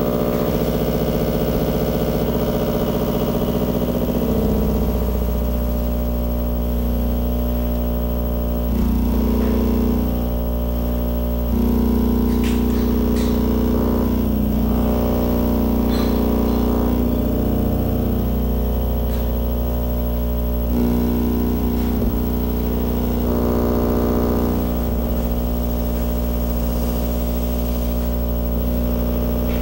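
Electronic noise music: a dense drone of many steady, buzzing tones over a deep hum, its layers shifting every few seconds. A few faint clicks come about midway.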